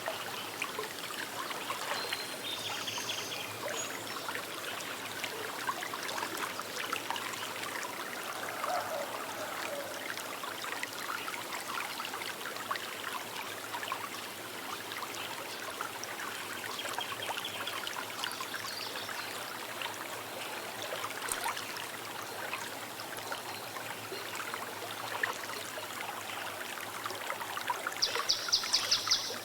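Small river flowing and trickling steadily over stones, with a few brief bird calls and a rapid high trill from a bird near the end.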